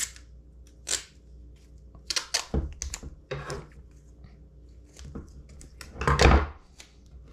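Tape and scissors being handled on a wooden tabletop: tape pulled off its roll and snipped, with scattered clicks and knocks and the loudest thud about six seconds in.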